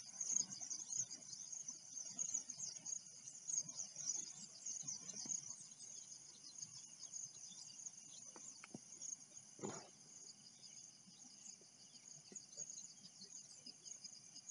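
Faint, steady high-pitched chirring of insects such as crickets, with a brief soft knock a little under ten seconds in.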